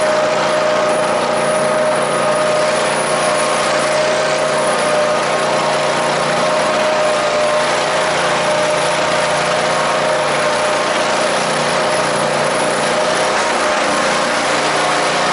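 Kohler Courage SV715 22 hp engine on a zero-turn mower running steadily, with a steady whine over the engine noise.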